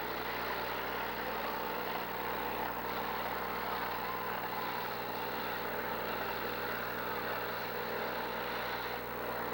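Demolition derby car engines running steadily, with no single crash standing out.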